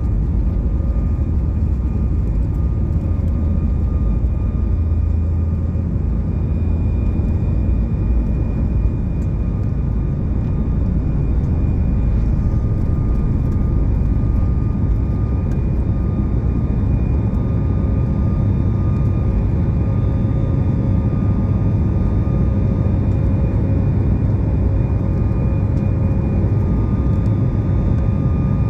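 Boeing 737 MAX 9's CFM LEAP-1B turbofan engines heard inside the passenger cabin: a steady, heavy rumble with several steady whining tones over it.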